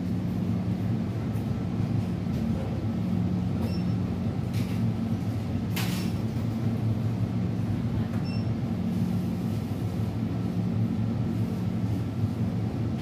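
Steady low mechanical hum with a light rumble, and a few faint clicks.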